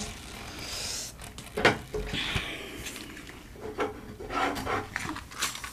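Rubber-gloved hands handling things on a tabletop: rubbing and scraping, with a few sharp knocks and clicks, as of wood and a plastic tub.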